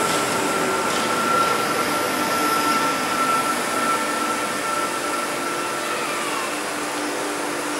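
NS SGMm Sprinter electric train pulling out of the platform and running past, a steady rush of wheel and motor noise with a high whine that dips in pitch about six seconds in as the rear car goes by.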